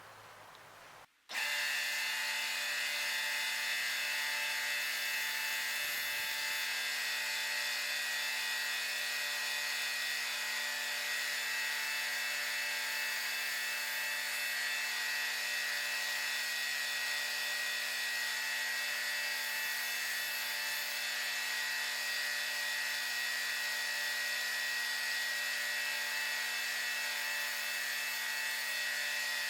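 Belt grinder running steadily while a Damascus knife edge is sharpened against a worn 220-grit belt. The sound starts suddenly about a second in and stays even throughout.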